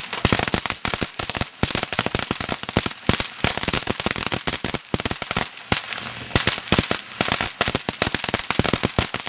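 Consumer firework going off in a dense, irregular string of sharp crackling pops, many a second, without a break.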